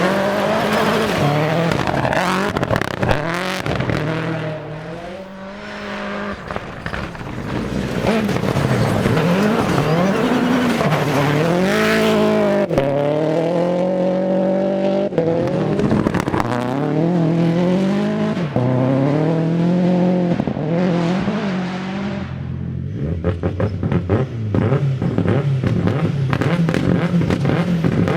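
Toyota Yaris AP4 rally car's turbocharged four-cylinder engine revving hard, its note climbing and dropping repeatedly through gear changes at full throttle. Near the end there is a run of rapid crackles.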